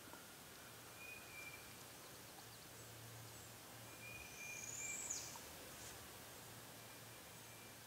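Faint songbird calls: a few thin, steady whistled notes, and about five seconds in a high call that rises and then drops sharply, the loudest sound, over a faint low hum.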